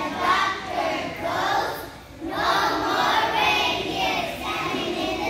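A group of young children singing a song together, with a brief break between phrases about two seconds in.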